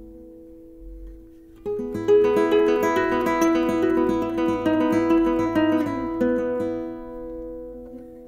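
Solo plucked-string instrumental music: held notes ringing and dying away, then a quick run of plucked notes from about two seconds in, left ringing and fading near the end.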